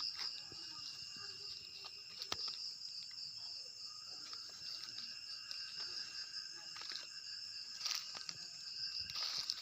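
Steady chorus of insects such as crickets, several shrill unbroken tones held throughout, with a few faint clicks.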